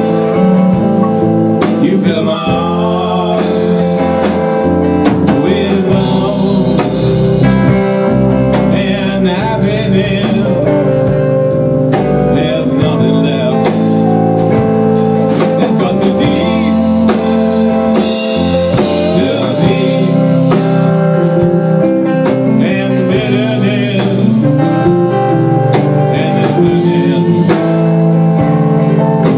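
Live rock band playing: electric guitars, electric bass and drum kit together.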